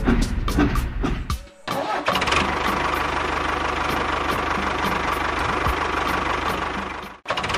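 Rhythmic clicking for about the first second and a half, then a tractor engine starting and running steadily at idle.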